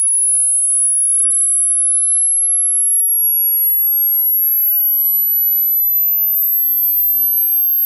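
A single very high-pitched electronic sine tone, loud and steady, gliding slowly upward in pitch.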